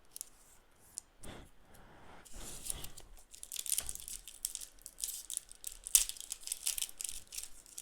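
Foil trading-card booster pack being torn open and its wrapper crinkled. Sparse at first, then a dense run of rapid crackling from about two seconds in.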